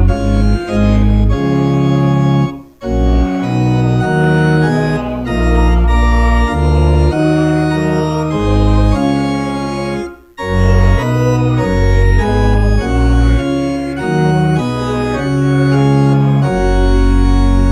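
Church organ playing a hymn in held chords, the sermon hymn of the service, with a brief break between phrases about three seconds in and again about ten seconds in.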